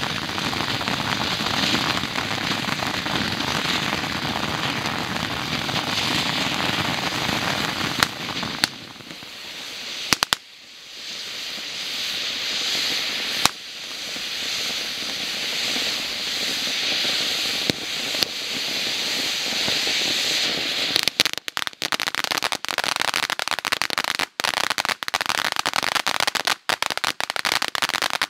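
Fireworks crackling densely, a steady sizzling rush of crackles punctuated by a few sharp bangs about a third of the way in. Near the end it breaks up into rapid separate pops and crackles.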